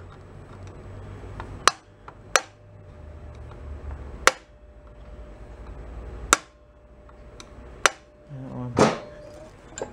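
Hammer tapping a screwdriver against the locking tabs on the connecting-rod bolts of an antique Briggs & Stratton engine, bending the keepers open: sharp metal strikes, five strong ones spaced irregularly a second or two apart, with a few lighter taps between.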